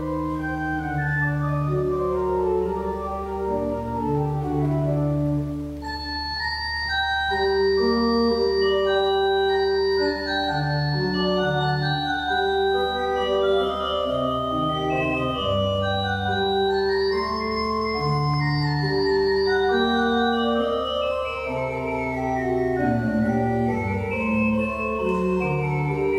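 Organ playing a slow piece of held chords under a moving melody, the notes changing about once a second.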